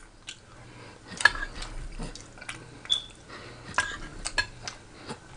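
Close-miked eating sounds: wet chewing clicks and a utensil scraping and clinking through rice and gravy on a plate. The sharp clicks come at irregular moments, a handful of times.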